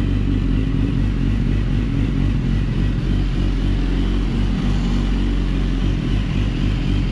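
A 2016 BMW S1000RR's inline-four engine running steadily just after starting. It is the freshly swapped replacement engine, warming up toward its 90 °C operating temperature.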